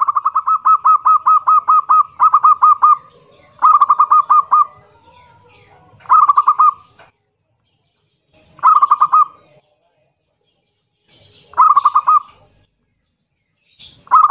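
Zebra dove (perkutut) singing loudly: rapid staccato cooing notes, about five or six a second. A long run comes first, then six shorter bursts spaced two to three seconds apart.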